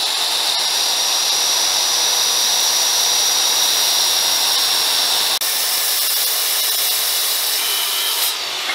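Skilsaw circular saw running and crosscutting a thick 8/4 oak board: a steady, loud high whine with the blade's note holding through the cut. The sound drops out for a moment about five and a half seconds in, then carries on.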